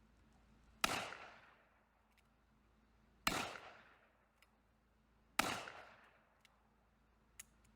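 Three gunshots from a Colt .45 revolver, about two and a half seconds apart, each followed by a fading echo.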